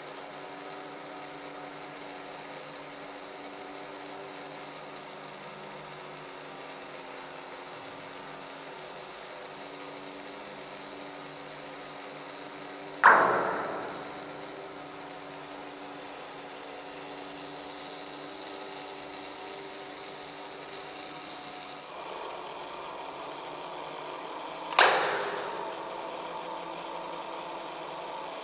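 A small LEGO Technic motor mechanism hums steadily, growing slightly louder a little after two-thirds of the way through. Twice, about halfway through and again near the end, there is a loud metallic strike on a large radiator that rings and dies away over a second or so.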